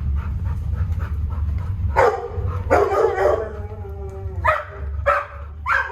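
Shelter dogs barking in their kennels: a long drawn-out bark about two seconds in, then three short barks about half a second apart near the end.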